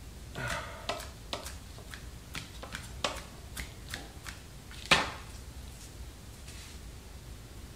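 Chef's knife chopping cilantro on a plastic cutting board: a dozen or so irregular taps, with one louder knock about five seconds in.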